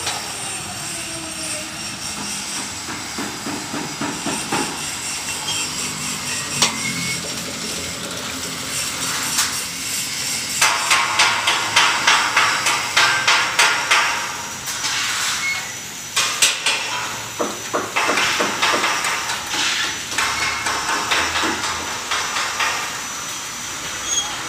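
Hand-cranked geared winch on a telescopic steel tower mast being wound up, clicking rhythmically several times a second as the mast sections extend; the clicking gets louder from about ten seconds in.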